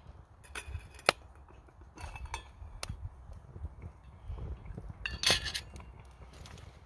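Spoon and lid clinking against a titanium camping pot: a few sharp metallic clinks, the sharpest about a second in, then a louder cluster of rattling clinks a little past five seconds.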